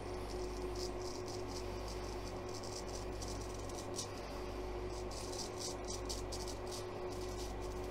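A straight razor scraping through week-old stubble on a lathered face in runs of short, quick strokes, each a brief rasp. A steady electric fan hum runs underneath.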